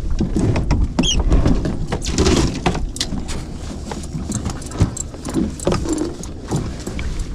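Fishing boat's engine running low and steady, with scattered knocks and clicks of gear on board.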